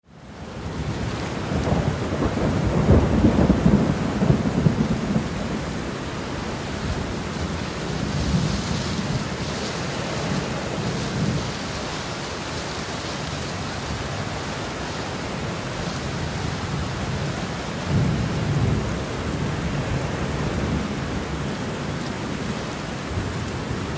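Steady rain with thunder rumbling through it, the rumbles swelling three times: in the first few seconds, around ten seconds in, and near the end.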